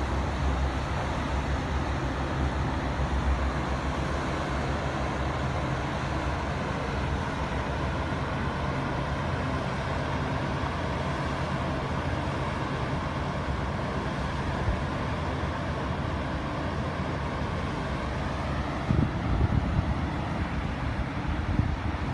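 A motor engine running steadily, with a short louder rough patch near the end.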